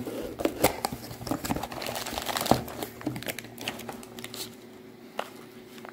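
Clear plastic parts bags crinkling and a cardboard parts box being handled, a dense run of rustles and small clicks that thins out after about three and a half seconds to a few isolated clicks.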